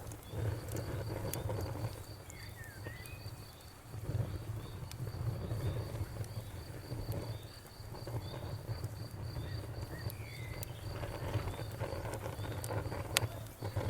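Campfire burning: a low flickering rumble with scattered sharp crackles and pops. A cricket chirps steadily behind it, about four chirps a second.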